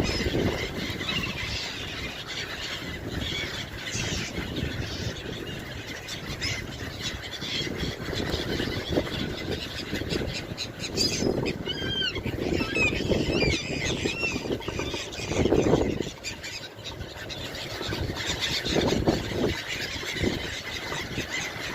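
A flock of gulls calling, many short squealing cries overlapping, busiest around the middle, over a constant low rushing noise.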